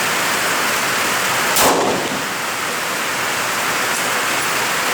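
Steady hiss of heavy rain, with a single rifle shot from a 6 Creedmoor bolt-action about a second and a half in.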